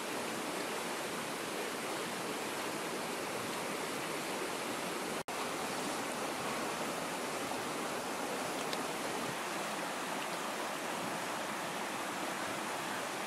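River water rushing steadily over rocks, with a momentary break in the sound about five seconds in.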